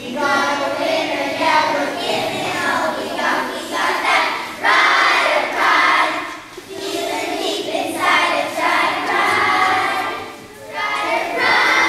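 A group of young children singing together, in sung lines broken by short pauses.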